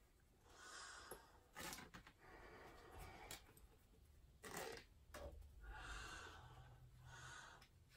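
Faint breathing through an M40 gas mask: several breaths hiss through the filter canister and valves, while the straps are adjusted and the canister is cupped for a seal check. A few short sharp handling clicks from the rubber mask and straps come in between.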